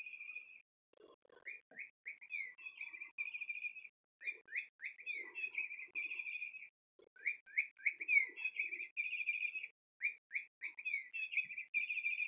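SmartyKat Chickadee Chirp electronic cat toy playing its recorded bird call: a run of quick falling chirps followed by a trill, repeated about every three seconds with short gaps.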